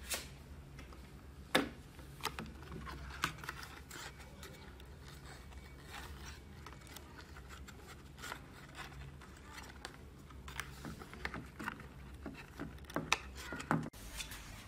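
Scattered small clicks, scratches and scrapes of fingers handling the wires and cardboard body of a homemade toothpaste-box toy truck, over a faint steady low hum.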